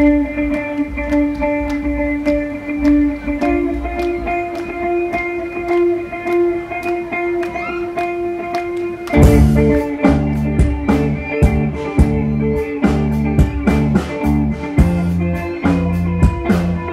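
Live rock band: electric guitar alone picking repeated, ringing notes, then about nine seconds in the drums and bass guitar come in together on a loud hit and the full band plays on.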